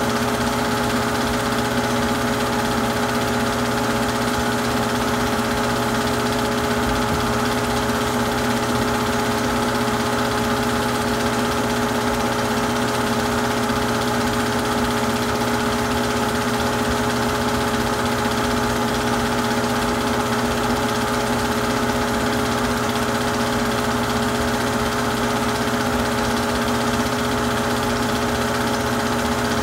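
Super 8 film projector running: a steady mechanical hum and whir that does not change.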